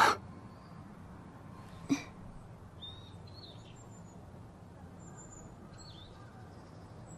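Birds chirping faintly and sparsely in the background, a few short high calls every second or so, over a low steady hum. A brief sharp sound about two seconds in.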